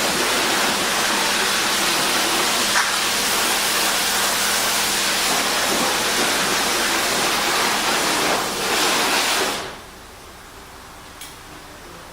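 A pressurised jet hissing steadily and loudly, then cutting off suddenly near the end, followed by a few faint clicks.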